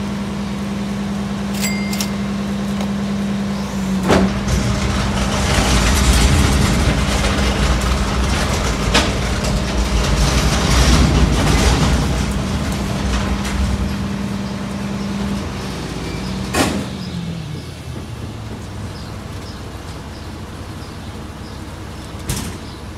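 Garbage truck's diesel engine running close by with a steady hum, louder with rumble and hiss through the middle. The hum drops in pitch and fades a few seconds before the end. Two sharp knocks stand out, one early and one about two-thirds of the way through.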